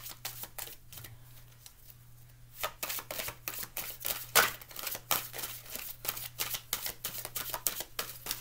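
A deck of oracle cards being shuffled by hand, overhand style, giving quick papery clicks and slaps. The shuffling stops for about a second and a half near the start, then resumes.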